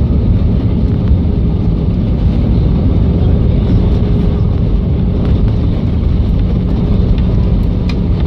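Airliner cabin noise during the landing roll: a loud, steady rumble of the jet engines and the wheels rolling on the runway, with a faint steady hum under it, heard from inside the cabin.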